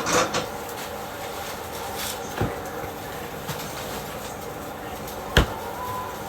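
Cookware and utensils clattering during stovetop cooking: a few short knocks and clacks, the sharpest about five seconds in, over a steady hiss.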